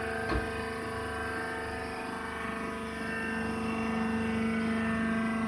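Hydraulic rice husk baling press running: a steady machine hum with several held tones. There is a short knock near the start, and the hum grows slightly louder about halfway through.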